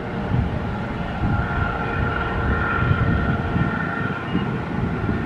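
Fuji Dream Airlines Embraer regional jet on landing approach, its turbofan engines giving a steady whine over a rushing noise. Strong gusty wind buffets the microphone with an uneven low rumble.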